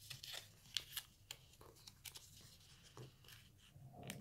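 A paper triangle being folded in half and creased by hand: faint rustling with scattered small ticks as the paper is handled and pressed flat.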